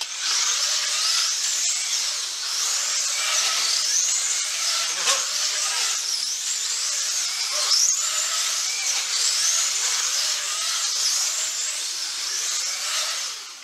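1/24-scale GTP slot cars racing, their small electric motors giving a loud, continuous whine whose pitch rises and falls again and again as the cars speed up and slow down. The whine starts abruptly and cuts off suddenly near the end.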